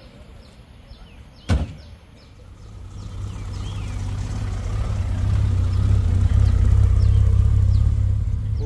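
A single sharp knock about a second and a half in, then a classic car's engine rumble that grows steadily louder as it draws near and holds close by.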